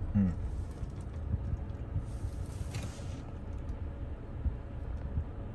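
Inside the cabin of a Mahindra XUV700 reversing slowly to park: a steady low rumble of engine and road noise, with a few faint clicks and creaks.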